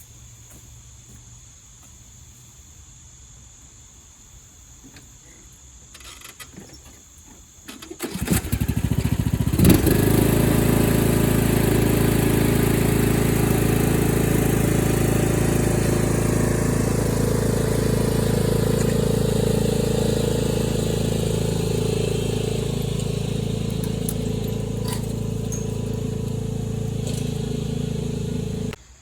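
John Deere D110 lawn tractor engine: after a brief start-up about eight seconds in, it runs loud and steady for about twenty seconds, then stops abruptly near the end.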